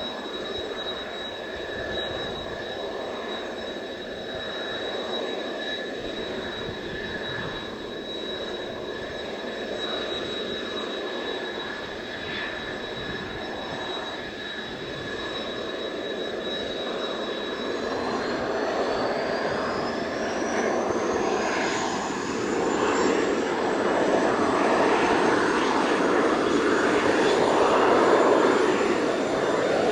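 Mitsubishi F-2 fighter's single turbofan engine whining steadily, then spooling up from about two-thirds of the way in: the whine rises in pitch and the engine noise grows louder.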